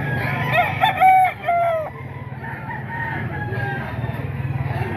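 A gamecock crowing close by: one loud multi-part crow from about half a second to two seconds in, over a steady low hum, with fainter crowing from other roosters after it.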